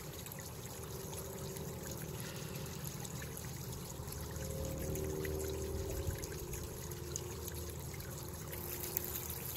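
Steady trickling, running-water noise with no speech, and a faint low hum that swells in the middle.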